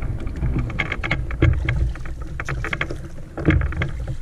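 Oars dipping and pulling through river water beside an inflatable raft, with repeated short splashes and water lapping against the boat over a steady rumble of wind on the microphone.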